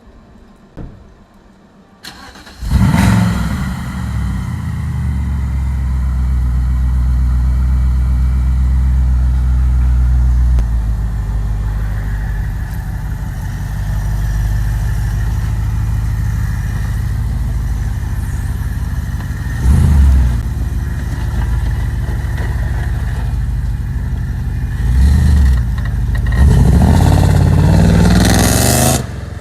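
BMW E63 engine with an Eisenmann aftermarket exhaust starting up about two seconds in with a loud flare, then idling steadily. It is revved briefly about two-thirds through, and twice more near the end.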